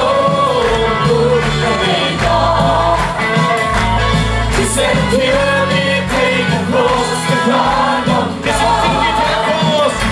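Group of voices singing a worship song over a band with a steady drumbeat and bass.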